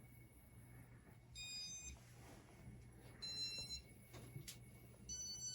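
Three short electronic beeps about two seconds apart, each a high multi-toned bleep about half a second long, over a faint steady low hum.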